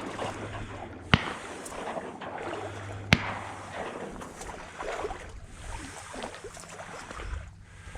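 Water sloshing and splashing, as of someone wading through marsh water, with two sharp clicks about two seconds apart.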